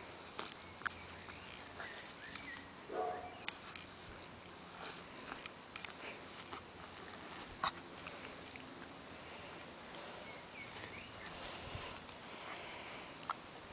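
Two seven-week-old Appenzeller Sennenhund puppies play-fighting in grass: faint rustling and scattered clicks from their mouthing and pawing, with one short puppy cry rising in pitch about three seconds in.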